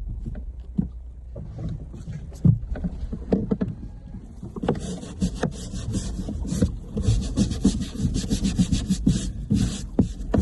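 Scrubbing to clean bird droppings off a rowing boat: scattered knocks at first, then from about halfway through a fast, continuous rasping rub, over a low rumble.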